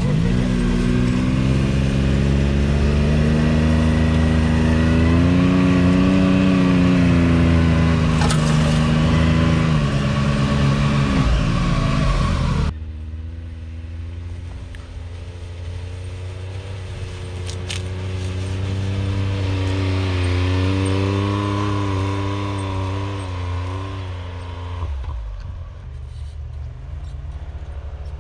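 Can-Am Maverick X3 Turbo RR side-by-side's turbocharged three-cylinder engine running close by, its pitch rising and falling with the throttle. About halfway through, the sound changes suddenly to side-by-side engines heard from farther off, quieter, still rising and falling in pitch.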